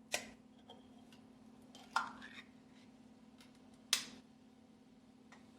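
Three sharp kitchen knocks about two seconds apart, metal utensil or can against the skillet as cream of chicken soup goes into the pan, over a steady low hum.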